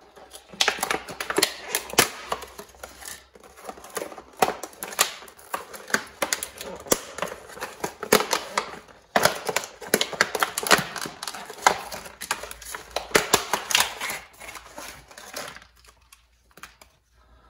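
Product packaging being opened and handled by hand: a dense, irregular run of crackles and clicks, pausing briefly about halfway through and stopping near the end.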